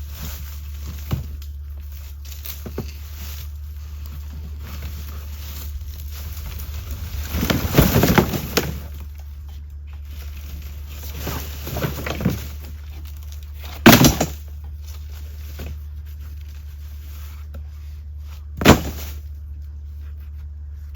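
A few scattered knocks and thuds over a steady low hum: a clatter of several impacts about a third of the way in, then two single sharp knocks, the loudest about two-thirds of the way through and another near the end.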